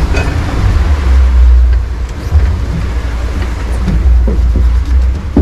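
Loud, uneven low rumble of wind buffeting the microphone on a boat under way, with the boat's own running noise beneath it.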